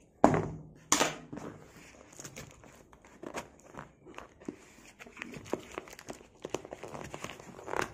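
Courier packaging being handled and opened by hand: irregular crinkling and crackling, loudest in two sharp rustles within the first second.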